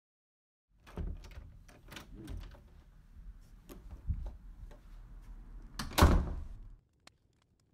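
A run of knocks, thuds and clatter over a low rumble, with one loud bang about six seconds in, then it stops.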